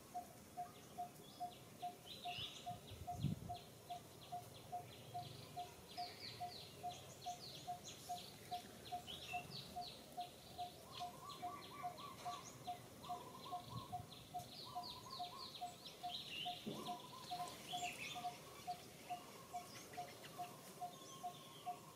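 Faint birdsong in the trees: a steady series of short, low, single-pitched notes about twice a second, with higher chirping trills coming and going over it. A brief low thump about three seconds in.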